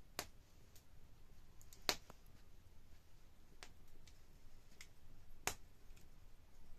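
Wood fire crackling under a cooking pot: sharp, irregular pops from the burning firewood, three of them louder, the loudest about two seconds in, with a few fainter snaps between.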